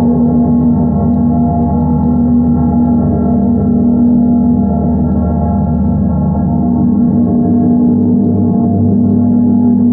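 Steady, loud drone of ringing bell tones layered at several pitches, with no separate strikes heard.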